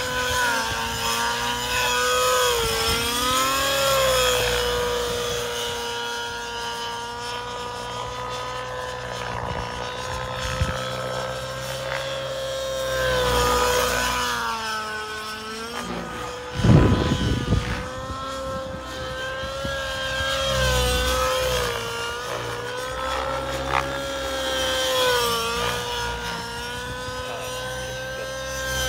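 Align 700XN nitro RC helicopter: its two-stroke glow engine and rotor give a steady high whine that dips and rises in pitch again and again as it passes and manoeuvres. A brief loud low rumble breaks in about two-thirds of the way through.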